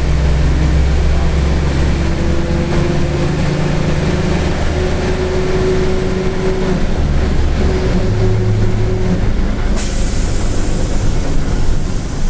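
Mercedes-Benz OF-1722M bus running, its diesel engine rumbling with a thin whine from the growling differential rising and holding from about two seconds in until about nine. About ten seconds in, a sudden hiss of compressed air from the air brakes.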